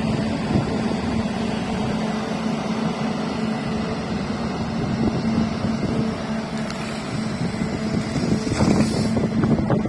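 Hyundai excavator's diesel engine running at a steady speed with an even hum, growing louder and rougher near the end.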